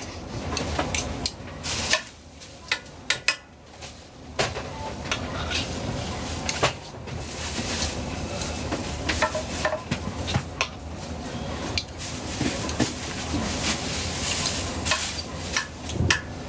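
A food vendor's metal utensils and containers clinking, scraping and knocking in irregular sharp clicks while an order is made up, over a steady background hum.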